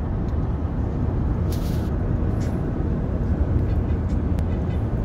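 Steady road noise of a car travelling at speed, heard from inside the car: a deep, even rumble of tyres and engine, with a brief hiss about a second and a half in.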